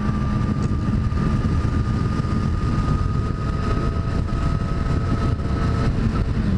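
Motorcycle at highway speed: the engine runs steadily under a heavy rush of wind and road noise on the helmet microphone. A thin steady whine rides on top and fades near the end.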